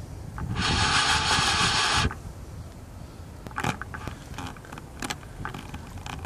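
Fly reel's drag screaming for about a second and a half as a hooked carp runs and takes line, then a few brief clicks from the reel.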